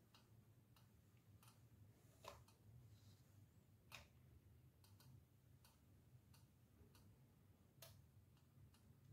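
Near silence: a low steady hum with faint, irregularly spaced clicks, about one every half second to second.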